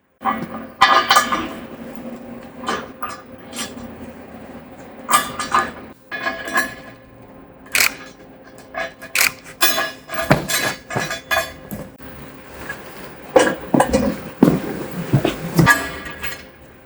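Metal parts and tools of a steel sawmill bed being handled during assembly: irregular clinks and clanks of metal on metal, each with a short ring, loudest about ten and fourteen seconds in, over a faint steady hum.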